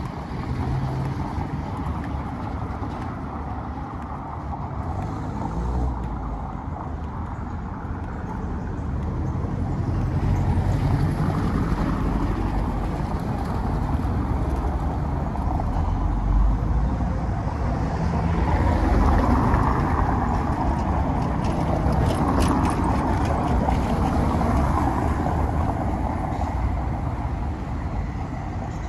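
Street traffic: cars running over a cobbled city street, a steady noisy rumble that swells louder from about ten seconds in and eases near the end as vehicles pass.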